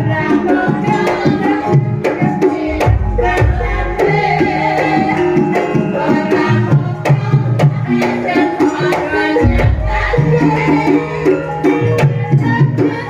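Javanese gamelan (karawitan) ensemble playing a gending: layered ringing metallophone notes over a steady pattern of low hand-drum strokes.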